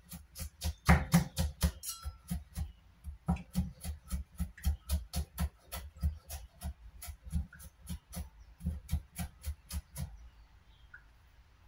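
Chef's knife chopping quickly and steadily on a wooden cutting board, about three or four chops a second, stopping about ten seconds in.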